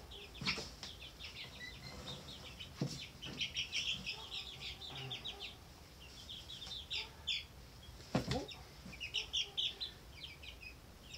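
Four-week-old chicks peeping in quick runs of short, high-pitched chirps, with a few short thumps of a chick flapping in the hands.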